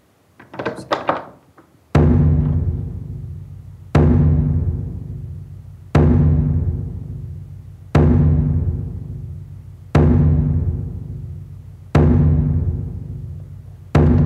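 Film score: a deep drum, like a timpani, struck slowly once every two seconds, each hit ringing out and fading before the next, seven hits in all. Before the first hit, a few brief soft noises.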